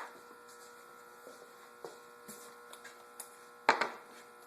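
A few light clicks, then a sharp metallic clank with a short ring, two or three strikes close together, about three and a half seconds in: hand tools or engine parts being handled on a workbench, over a faint steady hum.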